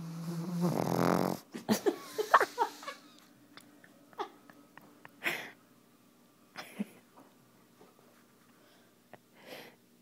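A sleeping puppy snoring: a long, wheezy snore in the first second or so, then a run of short snorts with whistly squeaks, and a few softer breaths spaced out after that.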